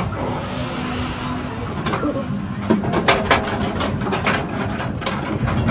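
Roller coaster train rumbling up the last of the lift and creeping over the crest of the drop, with a run of irregular mechanical clicks and clanks from the track and car from about three seconds in.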